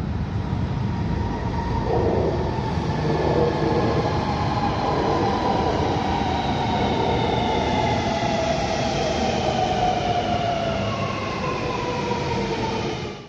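Sydney Metro's six-car Alstom Metropolis driverless electric train passing close below. Its wheels give a steady rumble on the rails, over which the electric traction drive's whine falls slowly in pitch.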